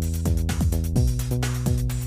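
Electronic dance music: a steady beat with deep bass notes and quick regular hi-hat ticks.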